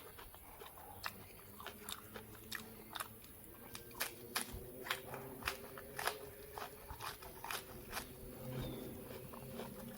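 A person chewing crunchy food close to the microphone, with sharp crisp crunches about once or twice a second.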